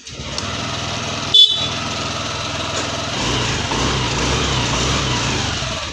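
Honda Activa 6G scooter's single-cylinder engine starting and idling, a little louder from about three seconds in. One short, loud horn beep comes about a second and a half in.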